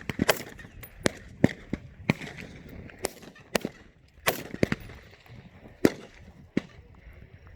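Rifle fire on a range, most likely 5.56 mm M4 carbines: about ten single shots at irregular intervals, some loud and close, others fainter, from more than one shooter on the line.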